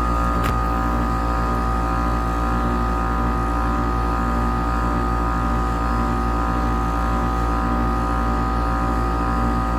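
Heat pump outdoor units running in heat mode: a steady compressor and fan hum made of many fixed tones over a strong low drone. A single sharp click about half a second in.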